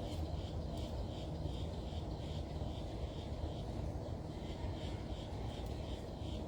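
A bird chirping over and over at an even pace, about three short high chirps a second, over a low steady rumble.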